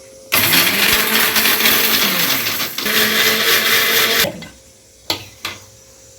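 Electric mixer grinder running for about four seconds, grinding soaked dried red chillies, garlic, ginger and whole spices into a masala paste; its motor pitch dips briefly near the middle before it stops. Two sharp knocks follow about a second later.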